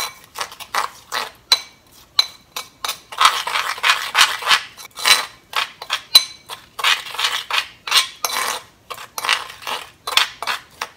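A metal spoon stirs and scrapes inside a grooved ceramic mortar (suribachi), mixing ground sesame seeds with the liquid seasonings into a dressing. It makes a quick, irregular run of scrapes and clinks against the ceramic.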